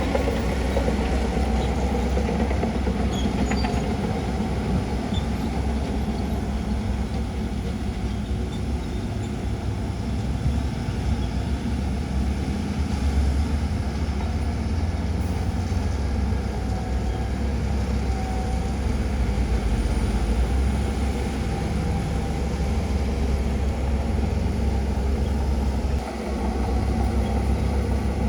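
Shantui DH17C2 bulldozer's diesel engine running steadily with a deep rumble, briefly easing off near the end.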